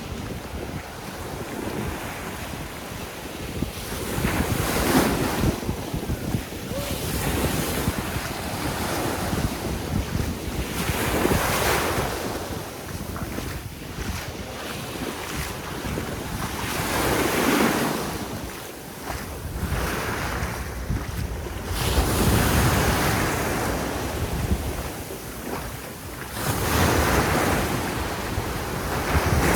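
Sea waves breaking and washing up on a sandy beach, a surge about every five or six seconds, with wind buffeting the microphone.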